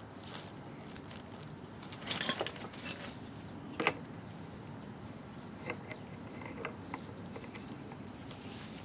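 Metal clinks and rattles of a pulley installer tool being fitted on a power steering pump pulley: its bearing and nut handled on the threaded stud and an adjustable wrench set on the nut. A short rattle about two seconds in, a sharp clink near four seconds, then a few faint ticks.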